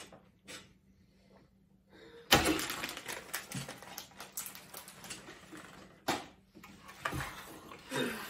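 Thin clear plastic bag crinkling and rustling as it is pulled and handled. The crackling starts suddenly a couple of seconds in, with a few louder crackles later.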